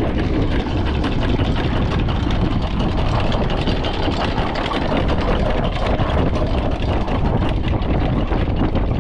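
A boat's engine running steadily under a rough, steady rush of wind on the microphone.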